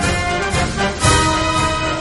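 Background music with a steady beat and sustained instrumental chords.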